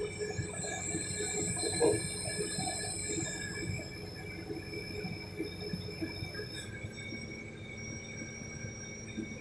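Hydraulic excavators running steadily under load, with a high metallic squeal for about three seconds near the start, like steel rubbing on steel as the machines lift.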